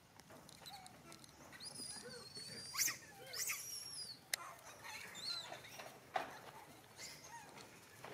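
Long-tailed macaques giving high-pitched squeaks and squeals, some gliding down in pitch, loudest about two to four seconds in, with a few sharp clicks scattered through.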